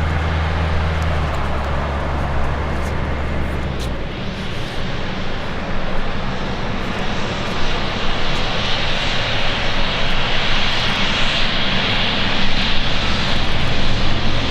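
Embraer 195 jet airliner's CF34 turbofans, the noise growing louder as the aircraft approaches, with a high whine coming in about seven seconds in. A low steady hum underneath stops about four seconds in.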